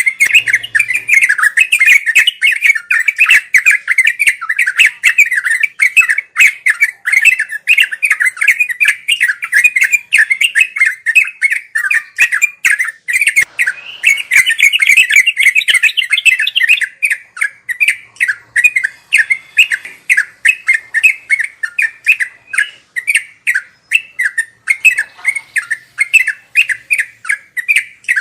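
Trucuk (yellow-vented bulbul) singing a rapid, continuous chattering song of quick notes, briefly louder and higher around the middle.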